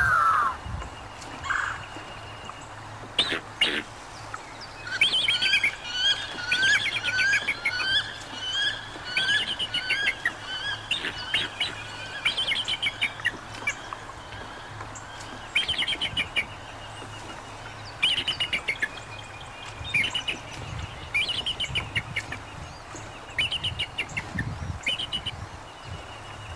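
Bald eagle calling: repeated runs of high, thin chattering chirps, several quick rising notes in each run, starting about five seconds in and recurring every second or two.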